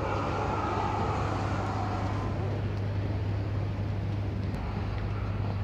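Steady low hum of vehicles running nearby with a broad traffic rush that is stronger for the first couple of seconds and then eases.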